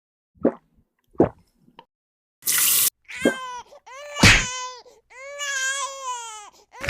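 Two short plops, a brief burst of hissing noise, then a high, wavering crying wail in several drawn-out bursts, like an infant crying, used as a sound effect.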